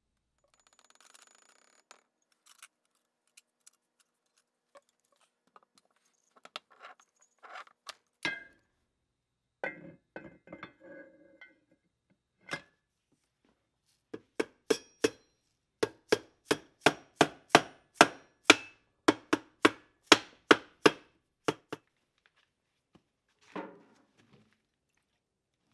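End bell of an old electric motor being tapped onto its stator housing to seat it: about twenty sharp, evenly spaced knocks with a short metallic ring, two or three a second, after a few lighter clunks of the parts being handled.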